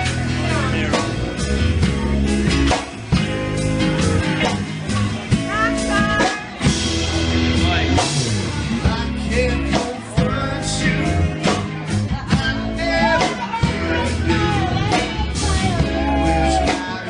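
Rock song with singing, guitar and a steady drum beat.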